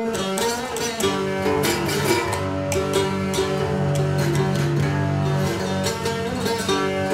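Cigar box guitar with an upturned dog bowl as its resonator, being picked: a run of plucked notes over low notes that ring on underneath.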